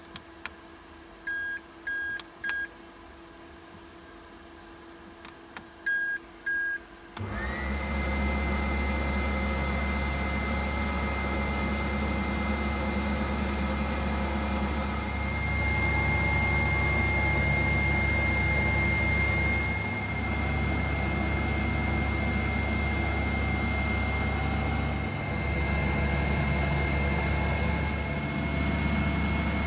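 Control-panel beeps of a Tefal Actifry 2 in 1 air fryer as its buttons are pressed, three quick beeps and then two more. About seven seconds in the fryer starts running: a steady fan-motor hum with a low drone and a high, steady whine, as the bacon begins cooking.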